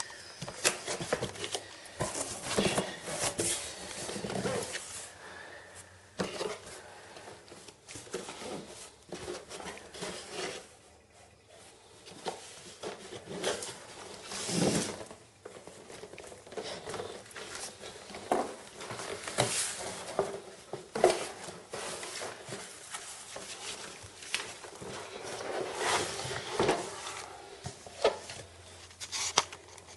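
Irregular handling noise from unpacking the printer's contents: rustling of plastic and paper packing with scattered knocks and clicks as items are moved.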